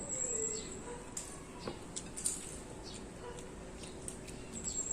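Close mouth sounds of eating: scattered wet clicks and lip smacks from chewing, with a couple of short high squeaks, one at the start and one near the end.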